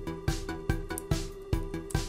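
Background music with a steady beat, about two beats a second, over held synthesizer-like notes.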